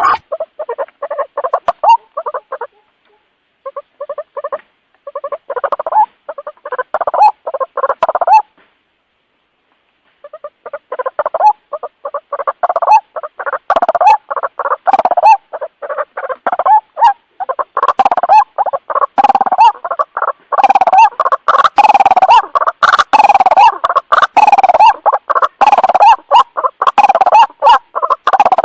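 White-breasted waterhen calling: a fast, unbroken run of repeated notes that stops dead twice in the first ten seconds, then runs on without a pause.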